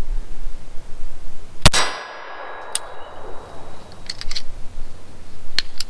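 A single shot from a Llama XV Especial .22 LR pistol about two seconds in, a sharp crack with a ringing echo that fades over about a second. It is followed by several light metallic clicks of the pistol being handled.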